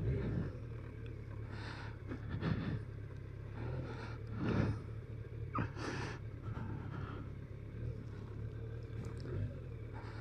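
BMW K1200RS's inline-four engine running low and steady at low speed, with a few brief louder vehicle sounds passing by.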